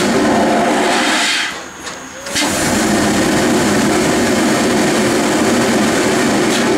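Steam locomotive 23 076, a former DB class 23, venting steam in a loud steady hiss low around its cylinders and driving wheels. The hiss eases off about a second and a half in and bursts back sharply about a second later.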